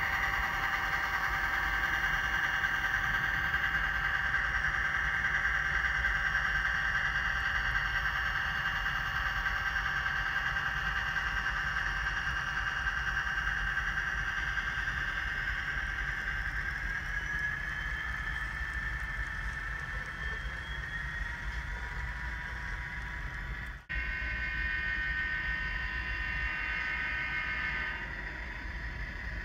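Sound decoder of an HO-scale WalthersProto EMD GP35 model locomotive playing a running turbocharged diesel prime mover, with a steady low rumble under a high whine. The whine rises a little past the middle. About 24 seconds in the sound cuts out for an instant, then goes on with several higher tones layered together.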